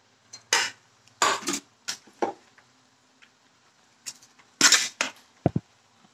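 Utensils and cookware clattering and scraping in several short bursts, two clusters of them, with a sharp knock and a brief ring near the end.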